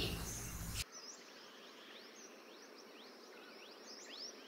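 Classroom room noise that cuts off suddenly under a second in, then faint, quick bird chirps: many short whistled glides, several a second, over near silence.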